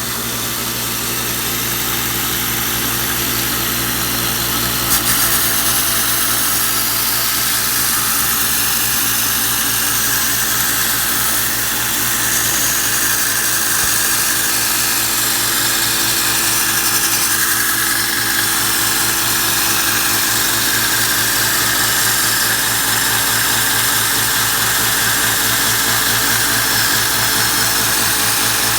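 Belt sander running steadily while the carbon-steel draw knife blade is ground against a coarse belt, taking down the primary bevel.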